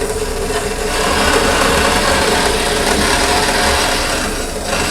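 Vertical bandsaw running and cutting a rough circle out of a Delrin plastic block: a steady whirring saw noise with a constant hum under it.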